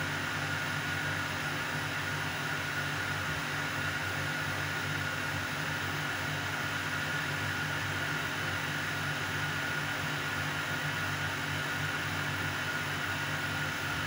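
Steady, unchanging hum and hiss with a faint high whine, like a fan or appliance running.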